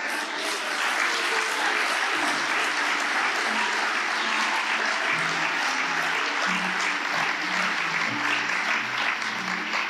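Audience applauding steadily, with soft music of sustained low notes coming in underneath about two seconds in.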